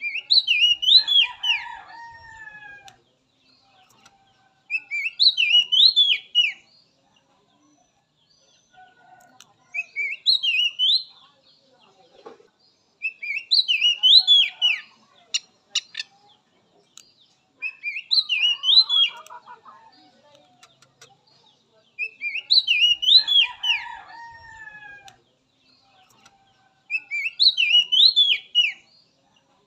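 Oriental magpie-robin (kacer) singing: seven short phrases of quick rising-and-falling whistled notes, one every four to five seconds, with pauses between.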